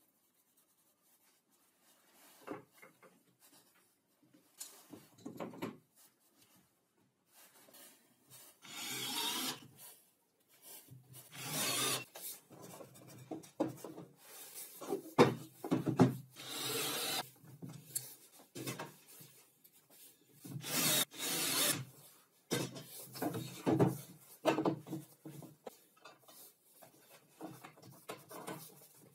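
Irregular rubbing and scraping of wooden parts slid and handled on a table saw's plywood top, starting about two seconds in as a run of separate bursts, each about a second long, loudest near the middle.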